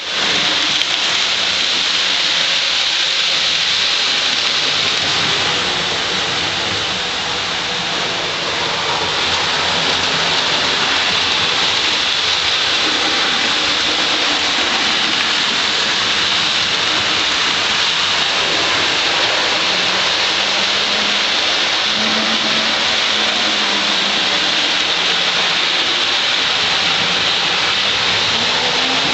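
Hornby model railway locomotive running along the track: a steady whirring rattle of the motor and the wheels on the rails.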